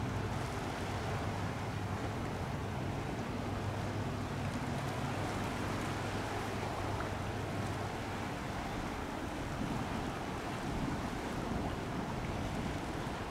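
High-speed catamaran ferry's engines running with a steady low drone that weakens about five seconds in, over wind on the microphone and the wash of water.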